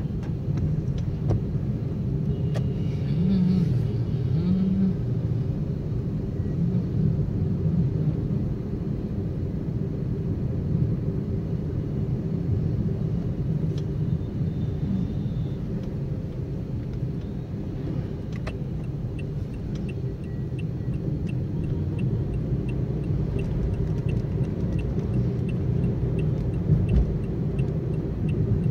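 Steady low rumble of a car driving on a wet road, heard from inside the cabin. Faint, regular ticking about once a second joins in the last third.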